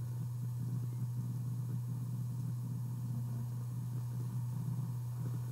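Steady low background hum with faint noise above it, unchanging throughout.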